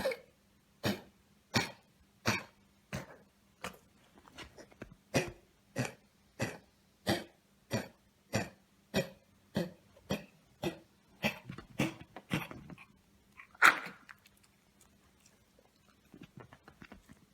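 Dog coughing again and again, about three coughs every two seconds for some twelve seconds, then one louder cough; a cough the vet diagnosed as kennel cough.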